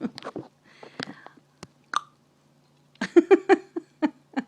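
A young child making mouth sounds: a string of short tongue clicks and brief voiced pops, with a quick run of them in the last second and a half.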